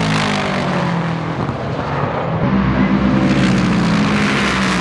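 Race car engines running at speed as cars pass on the track, one after another. The engine sound dips about a second and a half in, then swells again as another car comes through.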